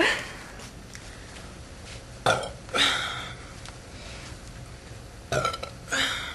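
Young women burping after drinking: four short burps in two pairs, the pairs about three seconds apart.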